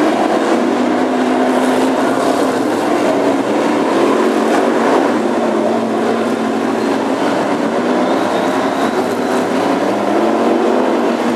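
Several BriSCA F1 stock cars' V8 engines racing together as a pack, a loud, steady mass of engine noise that never lets up.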